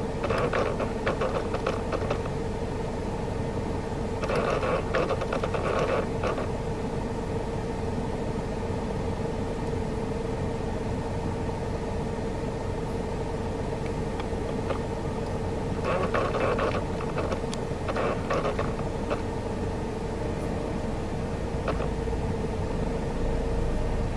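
Air mix damper servo of an NCP-series Toyota Sienta's heater unit malfunctioning behind the dashboard: irregular bursts of clunking and clicking come and go in clusters, over a steady cabin hum. This irregular noise is the sign of the temperature-blend flap misoperating.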